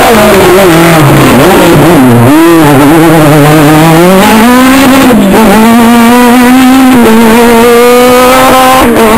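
Rally car engine at full throttle as the car passes close by. Its pitch falls, then climbs again through quick gear changes as it accelerates away. Very loud, and the sound cuts off suddenly near the end.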